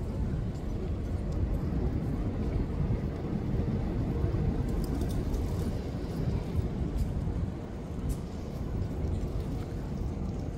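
Steady low rumble of background noise, with a few faint clicks about halfway through.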